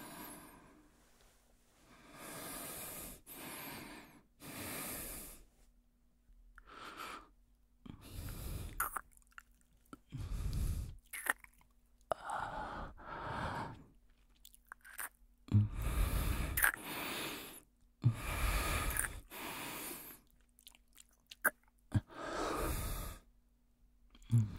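Close-miked breathing and wet mouth sounds, as in intimacy ASMR: a slow, irregular series of breaths, each about a second long, with a few sharp lip clicks between them.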